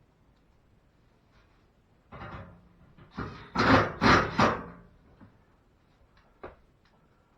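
Washing machine's back cover panel knocking and rattling as it is handled and fitted. There is a short burst, then a louder cluster of knocks in the middle, and a single sharp click near the end.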